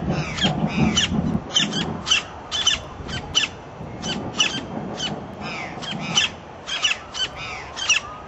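Campo flickers calling: a long series of short, sharp, high calls repeated about two a second, some sliding in pitch.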